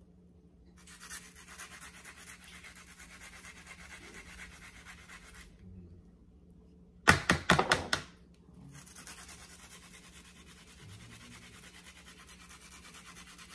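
An onion being grated on a hand grater, rapid rasping strokes. The grating stops briefly and a quick run of about five loud knocks follows, the loudest sound, before the rasping resumes.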